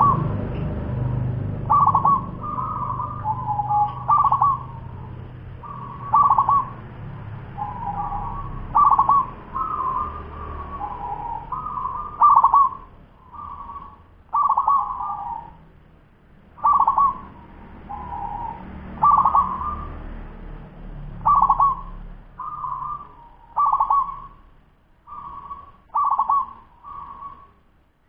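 Ten-month-old zebra dove of the local fast-singing type, cooing: short clusters of quick notes repeated about every one to two seconds.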